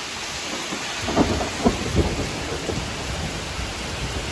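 Thunder breaking about a second in: a few sharp cracks within a second or so, then rumbling, over steady rain.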